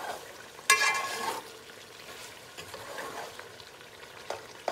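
Metal spoon stirring chicken and masala in an aluminium pot, with a loud ringing scrape against the pot about a second in and lighter scrapes after, over the faint sizzle of the masala frying. The masala is being fried down until it smells roasted.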